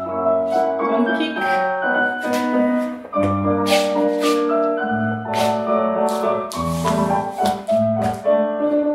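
Solo piano playing ballet-class accompaniment, with chords struck in a steady rhythm about twice a second.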